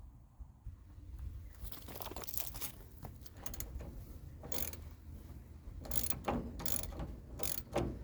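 Hand ratchet wrench clicking in irregular strokes as bolts are tightened by hand, without air or cordless tools.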